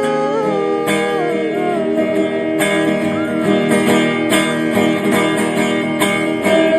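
Song accompaniment led by a strummed acoustic guitar, playing the instrumental break between sung lines. It opens with the tail of a held sung note.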